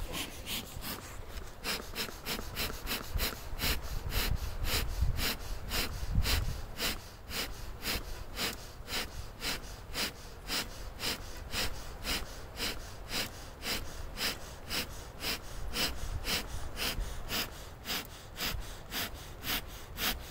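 Bee smoker's bellows pumped quickly, giving a steady run of short airy puffs, about two to three a second, to get the smoker going again.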